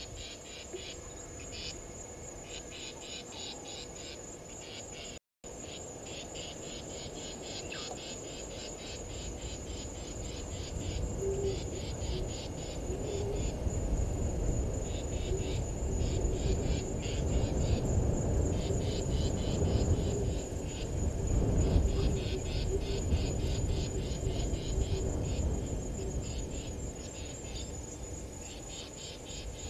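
Crickets chirping in fast pulsed trills, over a steady high-pitched insect buzz. A low rumble swells from about ten seconds in and eases off again near the end, and the sound cuts out for an instant about five seconds in.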